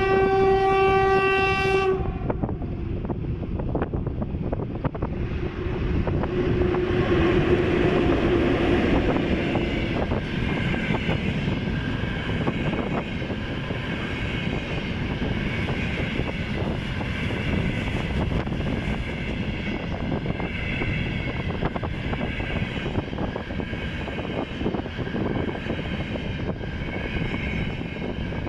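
VL10K electric locomotive sounding a single horn blast of about two seconds, then the locomotive and its container freight train rolling past with a steady rumble and wheel-on-rail clatter.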